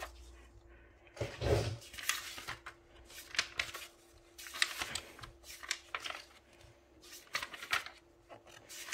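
Magazine pages being handled and turned: paper rustling in a string of short bursts, about one a second, with a low thump about one and a half seconds in.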